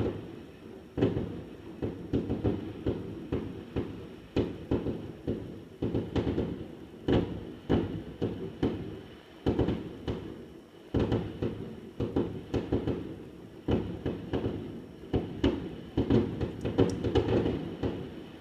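Fireworks going off: a fast, irregular string of bangs and thuds, several a second at times, thickest near the end before stopping.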